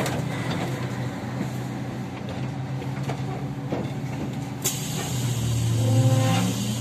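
Kyiv-12.03 trolleybus standing at a stop: steady low hum from its on-board equipment, with a click at the start and a burst of air hiss a little over four and a half seconds in. Near the end a hum swells and rises in pitch.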